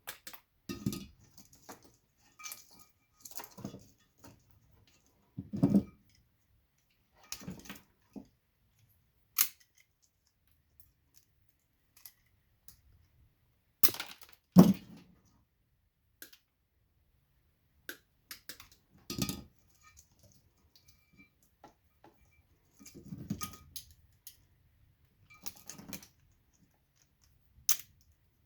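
Small Christmas-light bulbs and their plastic sockets being pried out and snapped apart by hand: irregular sharp clicks and cracks, some with a short crunch, a second or a few seconds apart.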